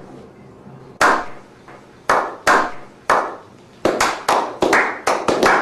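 Hand claps, single sharp claps about a second apart at first, then speeding up to two or three a second over the last couple of seconds.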